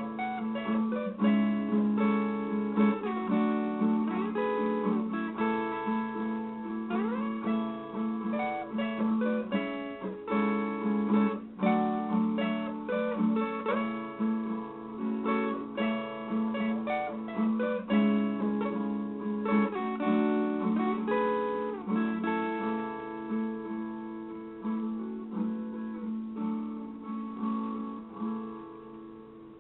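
Solo viola caipira, the Brazilian ten-string folk guitar, playing a slow instrumental tune of plucked notes and chords with a few sliding notes, fading away near the end.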